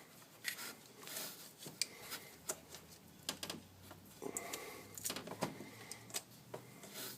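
Faint scraping, rubbing and scattered small clicks and knocks of an oil filter wrench being fitted onto and worked around an engine's oil filter.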